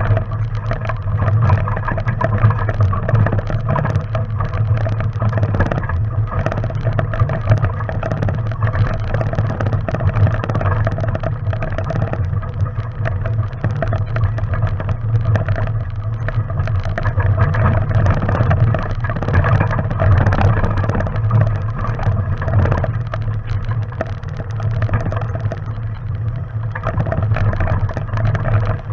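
Off-road vehicle's engine running steadily at low speed while crawling over a rocky trail, with constant rattling and clatter throughout.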